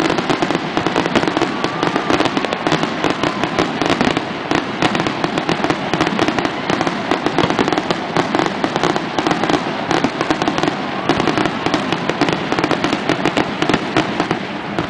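Aerial fireworks shells bursting in a dense, unbroken barrage, many sharp bangs and pops a second with no pause.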